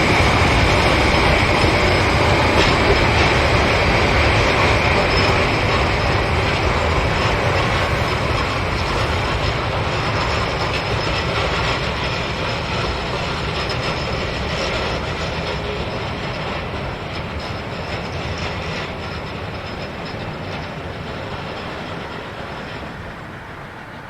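A train running on the rails and moving away, its rumble dying down steadily; a high-pitched squeal sounds in the first few seconds.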